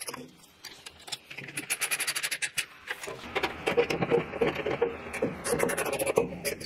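Irregular clicking, clinking and scraping of parts and tools being handled, with many short knocks that grow busier about halfway through.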